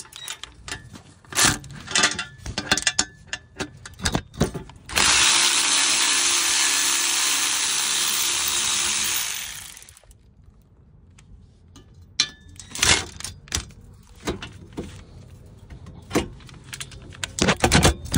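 ToolPRO cordless ratchet motor running for about four and a half seconds, undoing a bolt on a rear axle's brake backing plate, then winding down. Clanks and knocks of the socket and tools being handled come before and after it.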